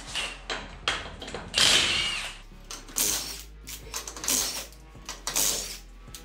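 Cordless impact wrench spinning lug nuts off a truck's steel front wheel, running in several short bursts with pauses between.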